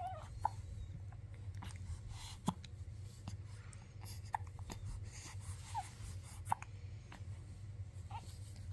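A baby hiccupping: short sharp hics every second or two, some with a tiny squeak, over a low steady hum.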